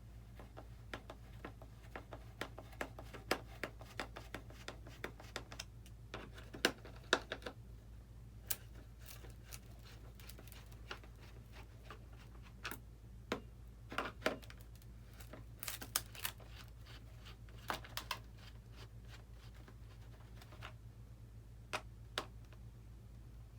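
Irregular small clicks and taps of a screwdriver and plastic parts being handled as screws are worked out of an RC model plane, busier in the first several seconds and then more scattered, over a steady low hum.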